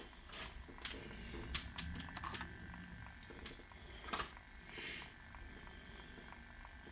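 Faint, scattered small clicks and short rustles from handling die-cast toy cars and plastic blister packaging on a cloth-covered table.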